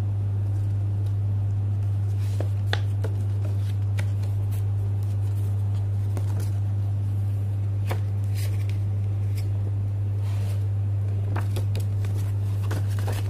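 A steady low hum throughout, with scattered rustles and crinkles of a paper leaflet being unfolded and handled.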